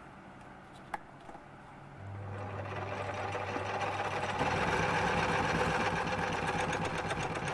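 A small metal lathe starts about two seconds in and runs up to speed with the faceplate spinning: a steady motor hum with a fast, even whirring rhythm from the drive. A single click comes about a second in.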